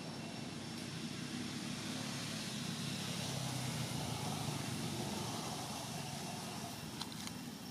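Steady outdoor background noise: a low rumble with a hiss above it, swelling a little in the middle, and two faint clicks near the end.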